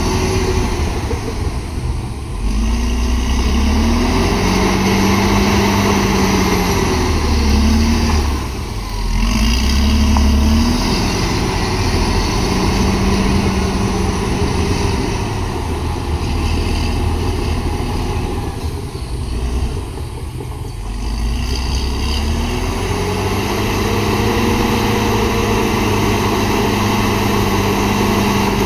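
Caterpillar D7R bulldozer's diesel engine working under load as it pushes a pile of soil, the engine note rising and falling repeatedly. It eases off briefly about eight seconds in and again around twenty seconds in.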